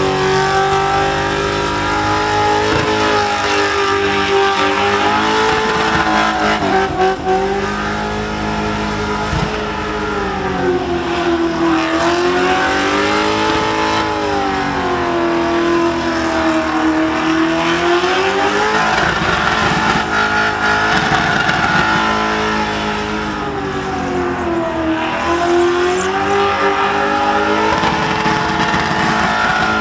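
Holden Commodore burnout car's engine held at high revs while its rear tyres spin on the pad. The engine note swings down and back up in long waves as the throttle is worked, over a steady rush of tyre noise.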